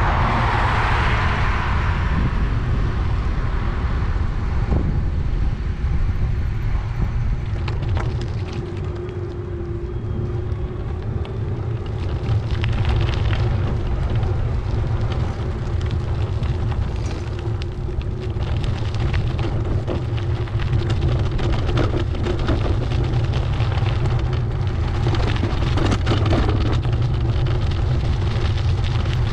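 Wind rumbling against the microphone of a camera riding along on a bicycle, a steady low buffeting, with scattered light knocks and a brief hiss in the first couple of seconds.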